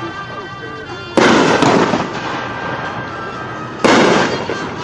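Shots from a 500 gram aerial firework cake: two loud bangs, about a second and just under four seconds in, each fading away over about a second.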